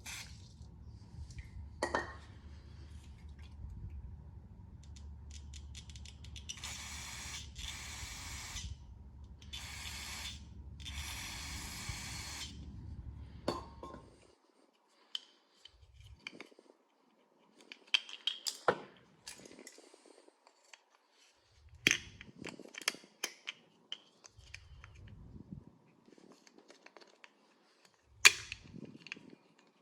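Four short hissing sprays, about a second or two each, over a low steady hum. After the hum stops, scattered sharp clicks and knocks of small parts and tools being handled.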